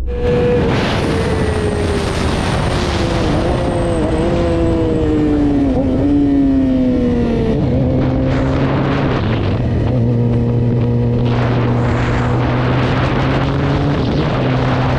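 Yamaha YZF-R6 inline-four engine running hard through an aftermarket slip-on exhaust. It revs high, its pitch slides down with small dips over the first half, then holds at a steady lower pitch.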